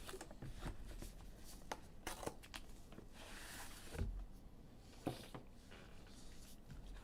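Faint handling of trading cards: scattered light clicks and taps, with a brief rustle about three seconds in and a soft thump near four seconds.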